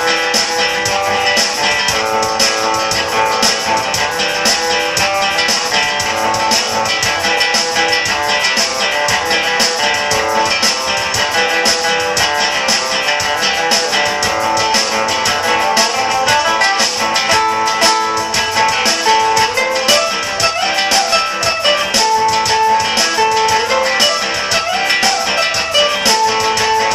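Music with strummed guitars and a steady beat, playing continuously at a loud, even level.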